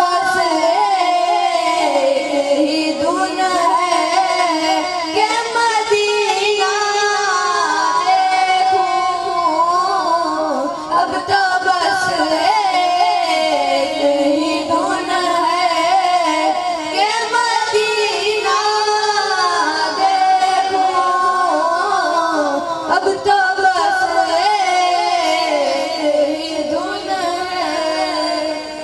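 A high voice singing a naat, a devotional song in praise of the Prophet, in long wavering phrases.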